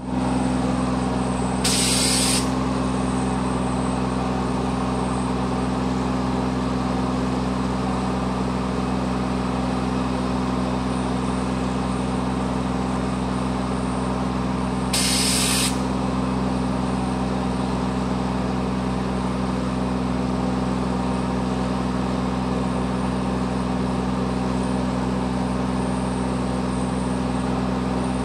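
A fire truck's engine runs steadily at a constant speed while pumping floodwater. A short, sharp hiss cuts in twice, about thirteen seconds apart.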